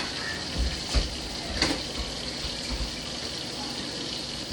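Kitchen tap running steadily into a sink while something is rinsed, with a couple of knocks of dishes about a second in.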